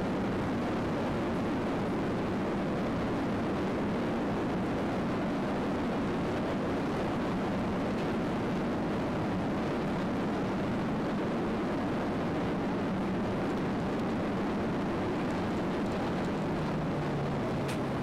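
Steady rumble of a Boeing 737-800 heard inside the cabin during landing: the aircraft's CFM56-7B engines and the airflow and rolling noise, with a low steady hum coming in near the end.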